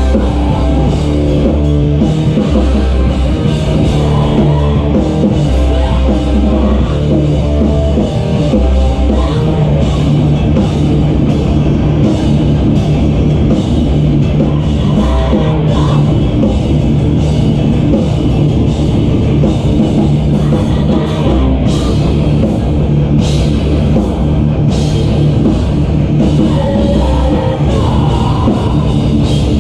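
Live rock band playing loud: guitars and drum kit, without a break.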